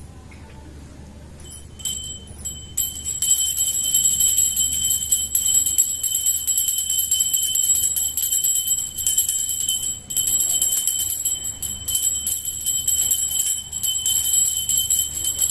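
Small pooja hand bell rung rapidly and continuously during an aarti, a bright high ringing that starts about two seconds in, with a brief break near ten seconds.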